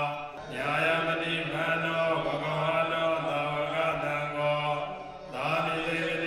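Buddhist monks chanting in a steady recitation, held mostly on one low note. There are short breaks for breath about half a second in and again near the end.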